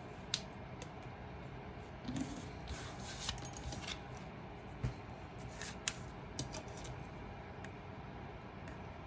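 Cardstock craft pieces being handled and pressed into place, with paper rustling about two to four seconds in and a few small sharp clicks and taps.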